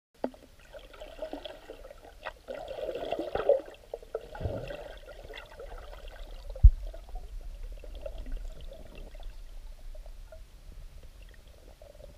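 Water gurgling and sloshing, heard underwater through the camera housing, in irregular bursts. One sharp low thump comes just past halfway.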